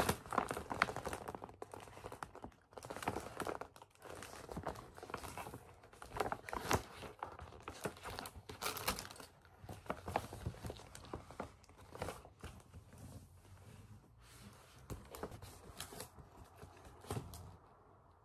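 Gift packaging being handled and unwrapped by hand: repeated rustling and crinkling, with some tearing and short sharp handling noises, dying down near the end.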